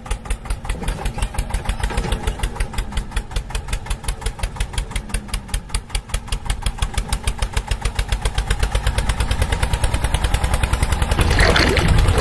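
Diesel tractor engine chugging steadily at about four beats a second, slowly growing louder over the last few seconds.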